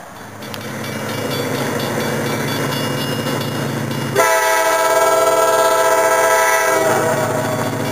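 Approaching CSX diesel freight locomotive, its engine growing louder, with a grade-crossing bell ringing. About four seconds in, the locomotive's air horn sounds one long chord of about two and a half seconds, then the engine runs on.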